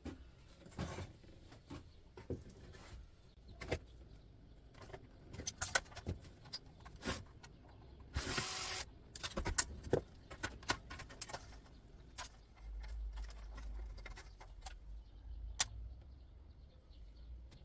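Irregular clicks, taps and knocks of metal parts being handled and pulled apart as the top of an electric hob is taken off, with a short rasping scrape about eight seconds in.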